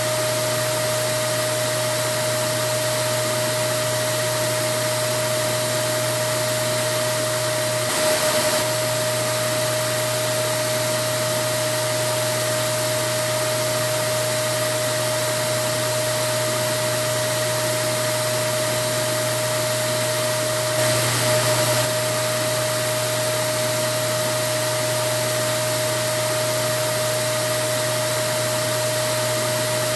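Vacuum cleaner running steadily: a constant rush of air with a steady whine over it, briefly a little louder twice, about eight seconds in and again a little past twenty seconds.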